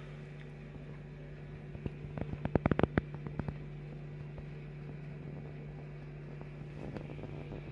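Steady low background hum, with a quick run of about eight light clicks about two to three seconds in.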